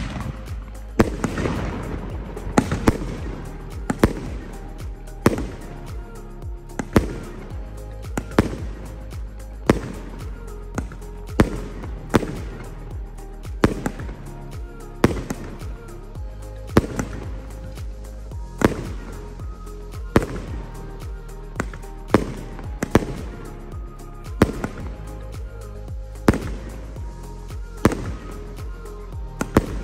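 Red Cobra X, a 250-gram aerial cake, firing shot after shot, with a sharp report about every second and a half as each shell launches and bursts.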